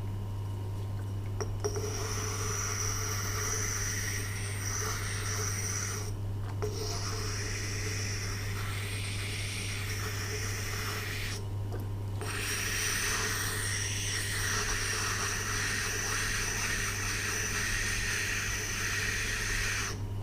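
Tormek T8 wet grinder running with a steady low motor hum while a kitchen knife blade is ground against its wet stone, a continuous scraping that starts a couple of seconds in. The scraping breaks off twice, briefly, as the blade is lifted.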